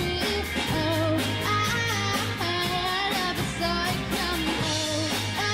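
Live rock band playing: electric guitars over bass guitar and a steady drum-kit beat, with a wavering melody line carried above the band.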